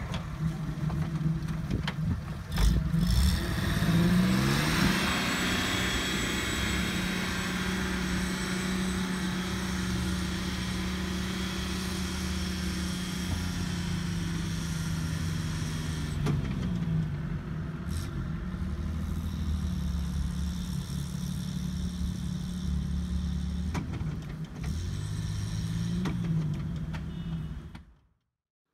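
VW LT 4x4 van's engine pulling under load on a sandy off-road climb, its revs rising and falling several times. A loud thump about two and a half seconds in; the sound fades out just before the end.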